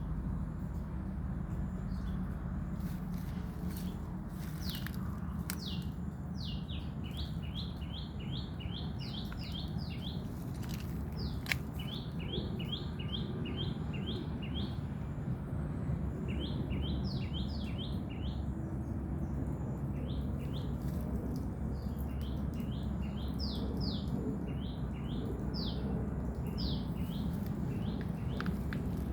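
A bird singing runs of quick, downward-sweeping chirps, several notes a second, repeated in bursts over a steady low rumble.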